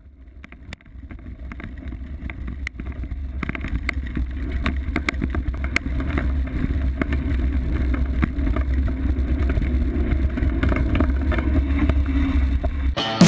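Wind buffeting the camera's microphone: a steady low rumble with scattered clicks, fading in over the first few seconds and growing louder. Guitar music comes in at the very end.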